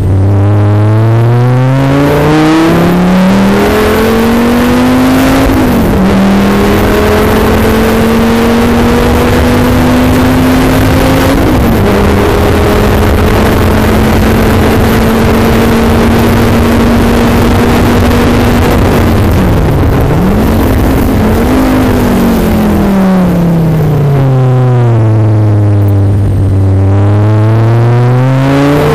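Performance car engine heard from on board at speed. It pulls hard with rising revs, shifts up twice, holds steady revs, then the revs fall away steadily before climbing again near the end, under heavy wind and tyre noise.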